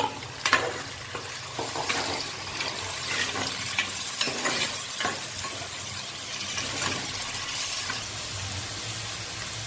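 Onions and freshly added tomato frying and sizzling in hot oil, with a spoon stirring and scraping the pan; several sharp knocks in the first few seconds.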